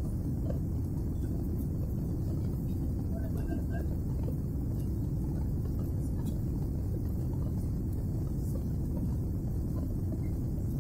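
Steady low rumble of a Boeing 767's engines and rushing air, heard inside the passenger cabin as the airliner climbs out after takeoff.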